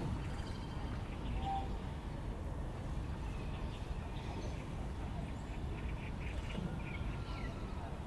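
Steady low rumble of outdoor background noise, with faint, scattered bird calls from birds some way off.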